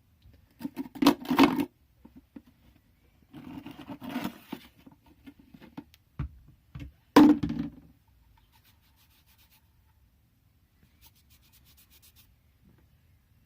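Small metal hand tools being handled and set down: rubbing and scraping with knocks, in three bursts over the first eight seconds. The loudest is a sharp knock a little past seven seconds, and after that only faint ticks.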